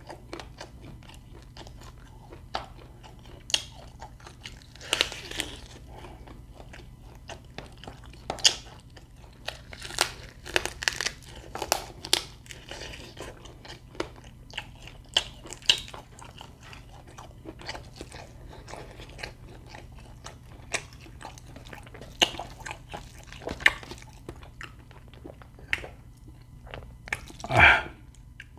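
Close-up chewing of quail meat, biting and crunching through its soft bones in irregular sharp crunches. Near the end there is one louder thump.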